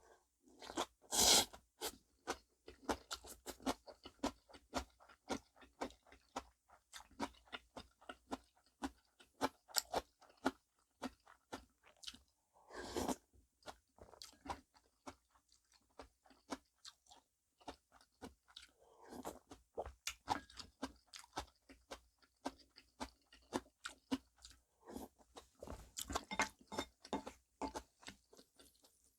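A person chewing mouthfuls of namul bibimbap (rice with seasoned vegetables), a steady run of small crunchy, moist chewing clicks. Two louder bursts stand out, one about a second in and one about thirteen seconds in.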